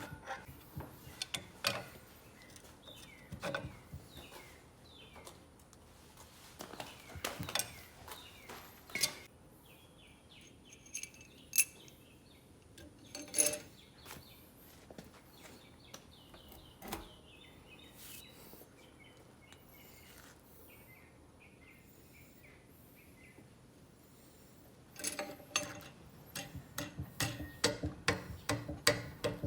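Scattered clicks and knocks of tools and metal parts being handled during the brake cylinder reassembly, with short bird chirps in the background and a quick run of clicks near the end.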